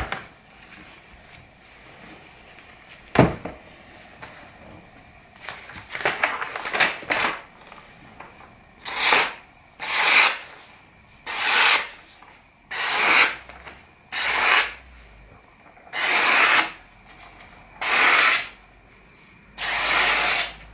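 Maxace Amber 2S folding knife with a CPM S90V blade slicing through paper, a series of about eight short slicing strokes roughly every second and a half in the second half. A single sharp knock comes about three seconds in.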